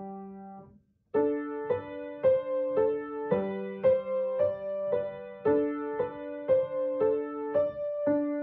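Solo piano playing a simple, even melody with a lower left-hand note beneath it, about two notes a second. The opening note fades to a brief silence about a second in, then the playing resumes.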